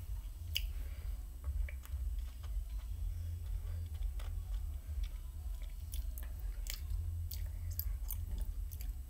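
Mouth sounds close to a phone's microphone: scattered wet clicks and smacks of lips and tongue, over a steady low rumble.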